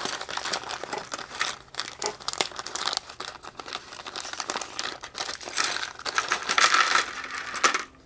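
Clear plastic parts bag crinkling as it is handled and opened, with small electronic components spilling and rattling out onto a plastic tray.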